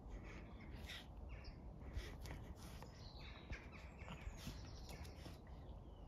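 Two puppies wrestling on grass and fallen leaves: soft scuffling and rustling, with faint short high calls now and then.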